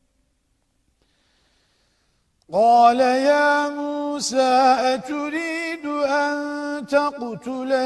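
Quran recitation: silence, then about two and a half seconds in a single voice starts chanting in melodic tajweed style, holding long ornamented notes.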